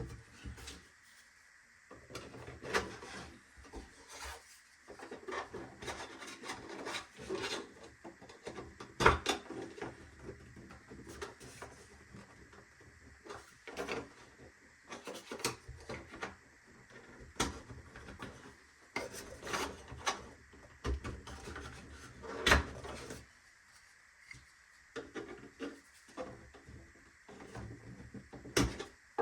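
3D-printed plastic toolbox drawer parts being handled and fitted together. Small connecting tabs click, scrape and rub as they slide into their slots, with a couple of sharper knocks as pieces meet.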